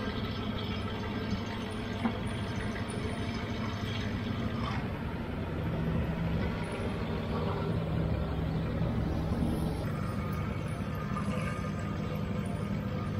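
Longtail boat engine running steadily, heard from on board.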